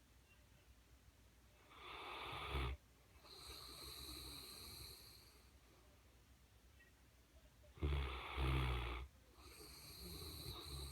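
Mastiff snoring in its sleep. There are two snores about six seconds apart, each a short loud snore followed by a longer, softer hissing breath.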